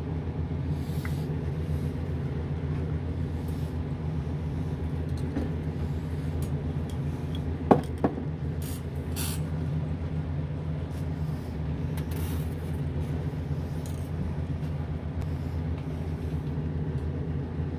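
Hobby spray booth's exhaust fan running with a steady hum. About eight seconds in, two sharp knocks as an aerosol paint can is set down on the booth's metal floor.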